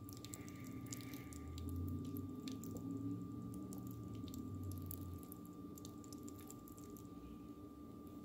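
Soft wet squishing and scattered small clicks from clumps of cooked potato pasta, with a low rumble between about one and five seconds in and a faint steady hum.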